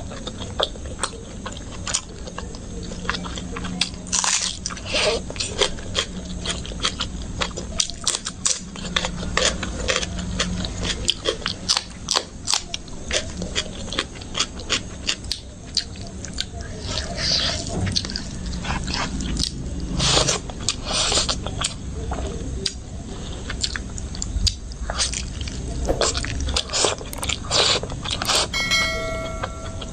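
Close-miked eating: a person chewing and biting rice and curry eaten by hand, with many irregular wet clicks, smacks and crunchy bites. Near the end comes a short electronic chime, the sound effect of an on-screen subscribe button.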